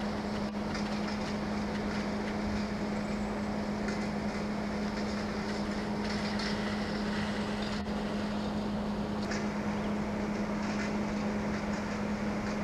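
Krösatågen X14 electric multiple unit pulling slowly into the platform, with a steady low hum throughout.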